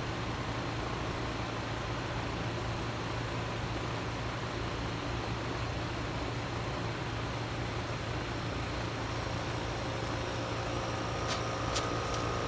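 Trane XR14 3-ton heat pump's outdoor unit running in heat mode: a steady fan noise over a constant low hum. Near the end a few steady tones join in, along with a few sharp clicks.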